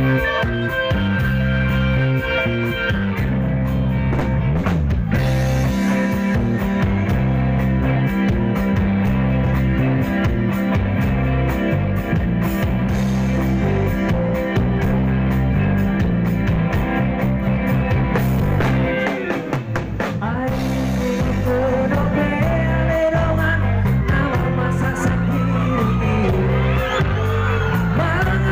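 Live rock band playing on stage through a PA: electric guitars, bass and drum kit, with singing over it. The bass drops out briefly a little after halfway, and in the last third pitch glides from the voice or a bending guitar lead stand out.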